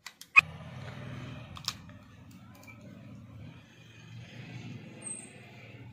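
A sharp metallic click about half a second in and a lighter click a second later as parts of a 30 bore pistol are worked by hand, over the steady low rumble of an engine running.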